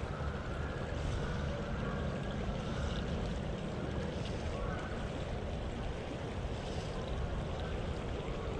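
Shallow creek running steadily over stones, with a low wind rumble on the microphone.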